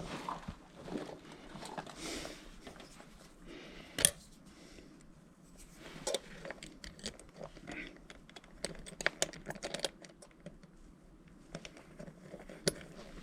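Hands handling small hardware and packaging: rustling with scattered clicks and taps, one sharp knock about four seconds in and a quick run of ticks a little past the middle.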